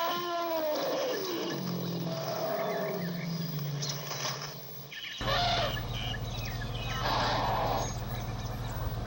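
An animal's call: one pitched cry that rises and falls at the start, then further scattered calls over a steady low hum that changes abruptly about five seconds in.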